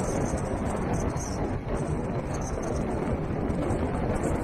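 Steady rumble of a vehicle driving on a wet unsealed dirt road: tyre and road noise with the engine running underneath.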